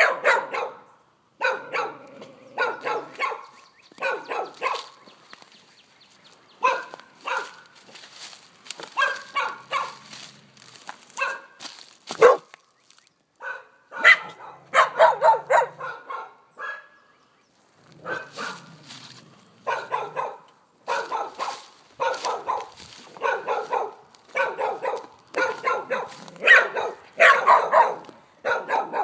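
Dogs barking over and over in quick runs of short, sharp barks with brief pauses between them: defensive barking at a person the dogs are afraid of.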